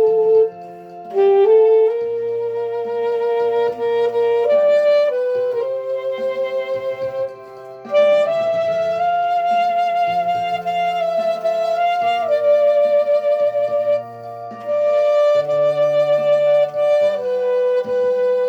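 Saxophone playing a slow gospel melody in long held notes over an instrumental backing track, pausing briefly between phrases twice.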